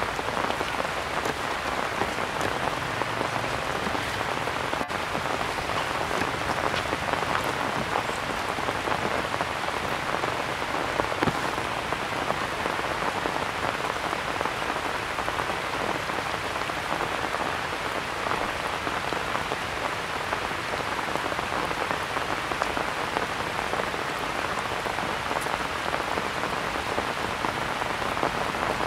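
Steady rain falling on grass and leaves, an even constant hiss with an occasional louder single drop.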